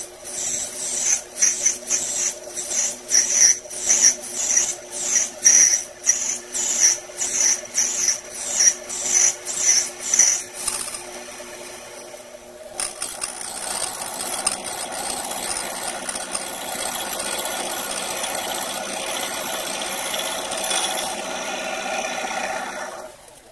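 Small metal lathe running while a Delrin plastic blank is turned. For the first half the cutting tool bites in short repeated strokes, about two a second, over the steady motor hum. About halfway through it changes to one continuous hissing cut, which stops just before the end.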